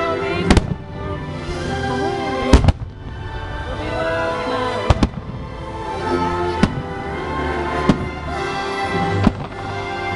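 Aerial fireworks bursting: about six sharp bangs a second or two apart, over the fireworks show's music soundtrack.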